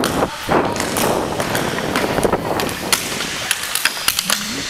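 Inline hockey skate wheels rolling and scraping on the rink floor close by, with many short sharp clicks of sticks and puck.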